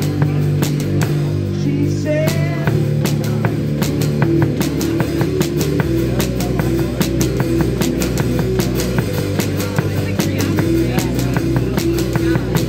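Live rock band playing: drum kit with frequent cymbal strikes over held bass notes that change every few seconds.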